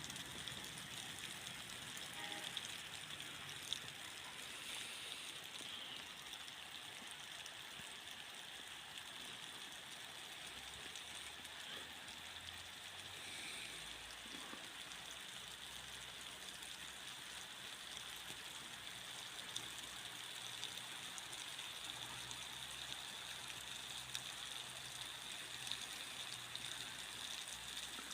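Steady rain falling: an even hiss with occasional faint drop ticks, and a faint low hum joining about halfway through.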